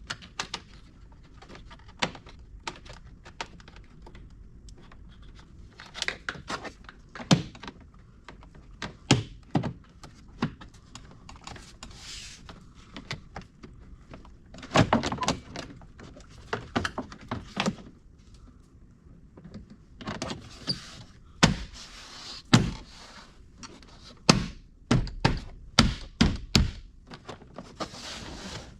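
Plastic interior trim cover being worked back into place by hand: irregular clicks, knocks and taps of plastic against the vehicle's trim, coming in clusters, as its clips are pushed home and snap in.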